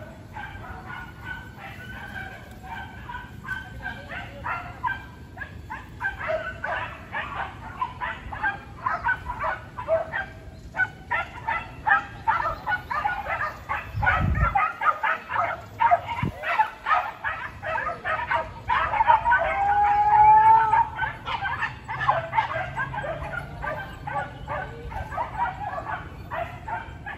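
Civet-hunting dogs barking and yelping rapidly and without a break, with a drawn-out howling cry about two-thirds of the way through. A couple of low thumps come around the middle.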